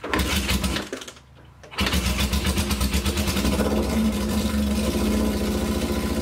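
Motorcycle engine running with an even, rapid beat for about a second, dropping away briefly, then firing up again about two seconds in and running steadily.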